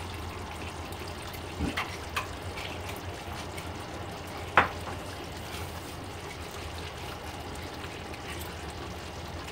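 Thick curry gravy simmering in a nonstick pan while a wooden spatula stirs it, over a low steady hum. A few soft knocks of the spatula against the pan come about two seconds in, and a sharper one at about four and a half seconds.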